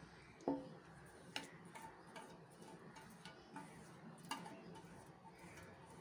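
Silicone spatula scraping and tapping against a steel mixing bowl: a string of light, irregular clicks, the loudest about half a second in with a brief metallic ring.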